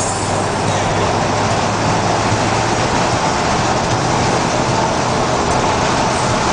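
Steady driving noise inside a moving car's cabin: an even engine hum under road and wind noise, holding constant speed.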